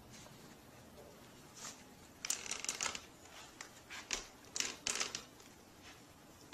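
A run of small crackling, crinkling clicks as a toddler handles and eats a snack, over quiet room tone, from about two seconds in until shortly before the end.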